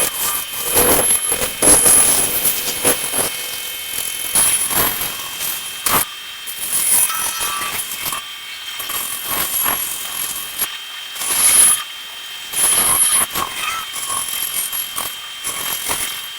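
Bandsaw running and rough-cutting wooden shapes: a steady high whine under cutting noise that swells and fades in uneven spurts as the blade works through the wood.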